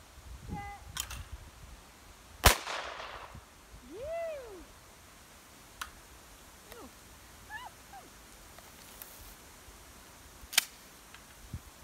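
A single shotgun shot about two and a half seconds in, its echo trailing off across the field, followed near the end by a second, shorter sharp crack.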